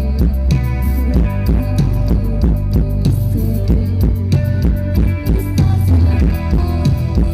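A band playing a rock song, with no singing. A drum kit keeps a steady beat under bass and guitar.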